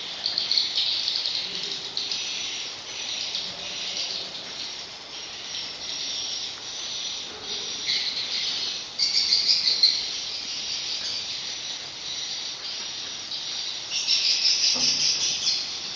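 Swiftlet lure sound played from a swiftlet-house sound system: several tracks of recorded swiftlet calls mixed into a dense, high chittering and twittering. It swells louder about nine seconds in and again near the end.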